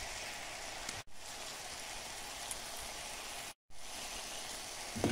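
Spinach and red onion sautéing in butter in a pot over medium-high heat: a steady sizzle that cuts out briefly twice, with a short knock near the end.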